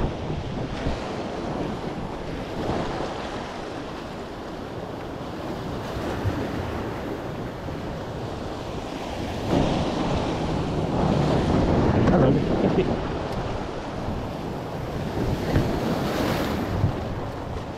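Sea surf washing in, with wind buffeting the microphone; the rush swells louder about halfway through and again near the end.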